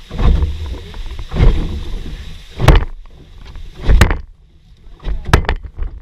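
A run of regular low thumps with sharp knocks, about one every second and a quarter, over rumbling noise on the microphone.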